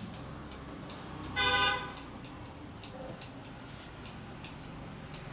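A vehicle horn honks once, briefly, about a second and a half in, over low street background with faint scattered clicks.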